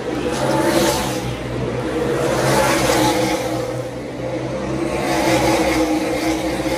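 A pack of NASCAR Cup stock cars with V8 engines racing past, the engine noise rising and falling as cars go by about three times.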